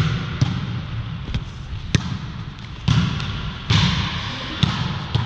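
A run of sharp slaps and thuds, about seven at uneven spacing, echoing in a large gymnasium: a volleyball being hit and landing, and players' shoes on the hardwood court, over a steady hall rumble.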